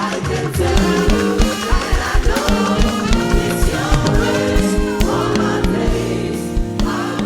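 Gospel praise music: a choir singing over a band, with a steady drum beat.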